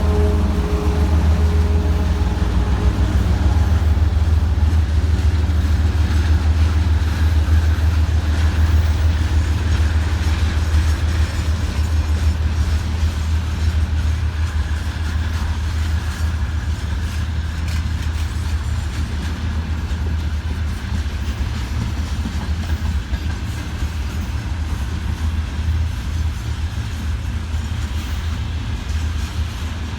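A freight train rolling past behind a 2TE116UD twin-section diesel locomotive, with a steady low rumble and wheel clatter from the wagons. The engine hum of the locomotive fades out in the first few seconds.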